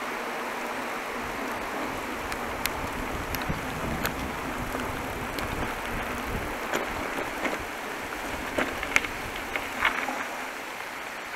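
Bicycle tyres hissing steadily on wet asphalt as the bike rolls along, with a few light clicks scattered through.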